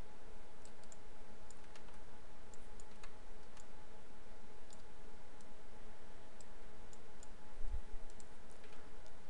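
Scattered light clicks of a computer mouse and keyboard at irregular intervals, over a steady background hum, with one low thump near the end.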